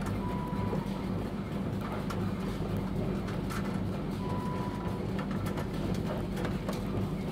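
Commutator slotting machine running: a steady motor hum with scattered light clicks and knocks of parts being handled. A short, steady high tone sounds twice, near the start and about four seconds in.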